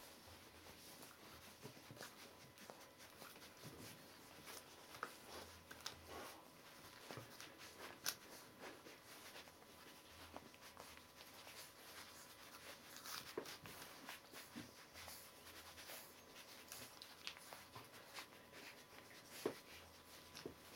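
Faint, scattered rustles and small clicks of three-week-old Border Collie puppies shuffling and pawing about on newspaper and a fleece rug.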